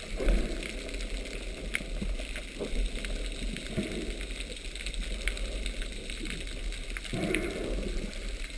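Underwater sound at a camera in its housing: a steady crackle of scattered sharp clicks, with a few swishing rushes of water, the loudest about a quarter second in and another about seven seconds in.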